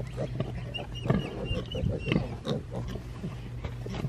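A sow and her young piglets grunting in short, repeated grunts, with a few brief high squeaks from the piglets between about one and two seconds in.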